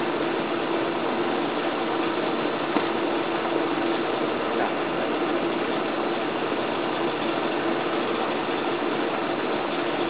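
Steady whirring hum with a rush of air, unchanging throughout: an air blower forcing air into a charcoal-fired pottery kiln.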